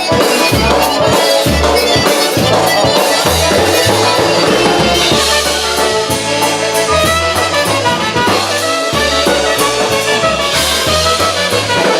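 Live polka band playing an instrumental passage of an oberek, with trumpet and saxophone over bass and a drum kit keeping a quick steady beat.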